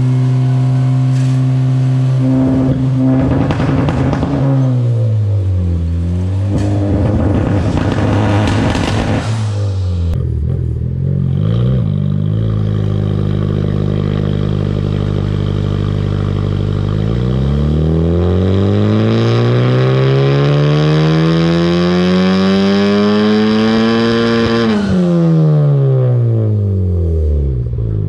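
Turbocharged Honda Civic four-cylinder engine running on a chassis dyno. It holds steady revs and dips and recovers early, then makes a full-throttle pull that climbs smoothly through the rev range for about seven seconds before lifting off and winding quickly back down.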